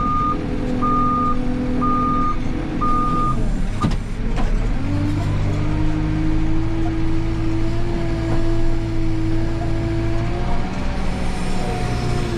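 Backhoe loader's reversing alarm beeping about once a second over its idling diesel engine. The beeps stop about three seconds in, and the engine revs up and holds steady, with a faint whine, while the loaded front bucket is lifted.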